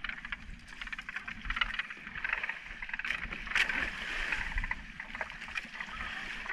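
Sea water splashing and sloshing against an outrigger canoe's hull and bamboo outrigger float, with a louder splash about three and a half seconds in.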